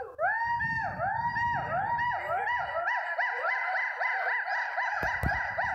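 A gibbon singing: a fast series of loud whooping notes, each rising and then falling in pitch. The notes come quicker as the call goes on, from about two to about four a second.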